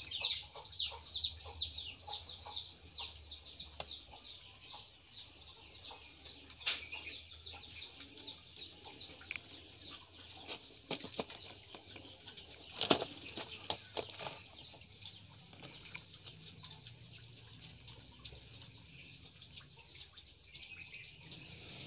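Small birds chirping quickly and repeatedly, busiest in the first few seconds and thinning out after, with a few light clicks and taps, the loudest about thirteen seconds in.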